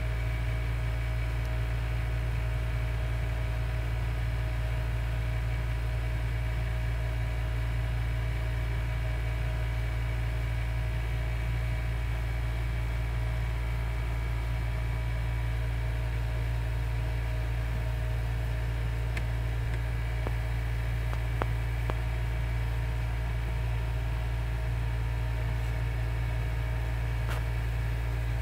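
Steady low mechanical hum with a faint hiss over it, unchanging throughout. A few faint ticks come in the second half.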